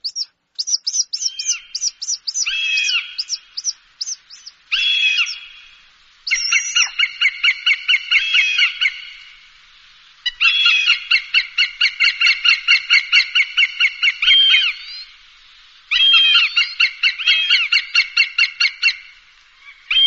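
Hawk calling: a few separate harsh, downward-curving cries, then long runs of rapid, evenly repeated notes at about four a second, each run lasting three to four seconds with short pauses between.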